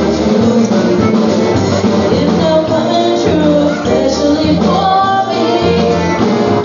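Live polka band playing dance music, a melody line over steady repeating bass notes, amplified through PA speakers in a large hall.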